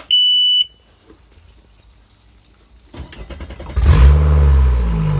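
Mercury 115 Pro XS four-stroke outboard being started cold after winter storage: a half-second beep from the warning horn as the key is switched on, then about three seconds in the starter cranks briefly and the engine catches, revs up and drops back toward a steady idle.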